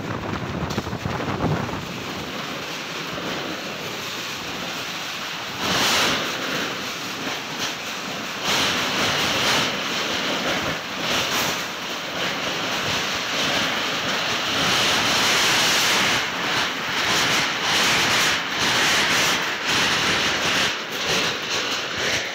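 Heavy storm: strong wind rushing with a steady hiss, in surges that grow louder about six seconds in and again from about eight seconds on.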